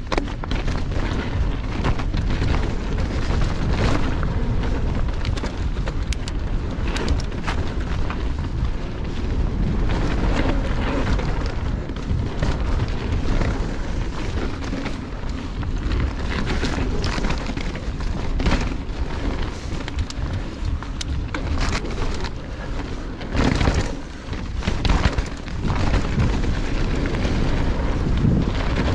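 Wind rumbling over an action camera's microphone on a fast mountain bike descent. Through it, tyres crunch over rocky dirt and the bike rattles and knocks over bumps, with a couple of heavier hits about three-quarters of the way in.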